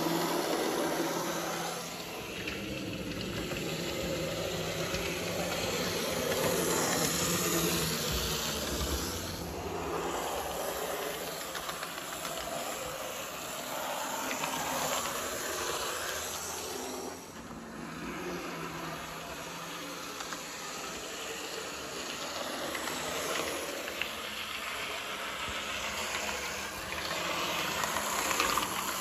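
Lima OO gauge model GWR railcar running on the layout track: the motor bogie whirring and the wheels rumbling on the rails, swelling and fading in loudness as it goes round, running smoothly after its repair.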